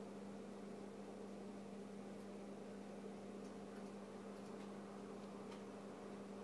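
Faint, steady electric hum of a nano saltwater aquarium's pump, over a light hiss, with a few faint ticks in the middle.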